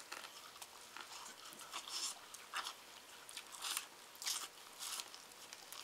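Two people biting into and chewing seafood-boil corn on the cob, with irregular short crunches and wet smacks.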